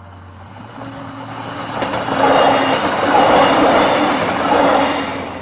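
LGB garden-scale model train passing by with its onboard sound effects playing. The sound swells to a peak in the middle and fades toward the end.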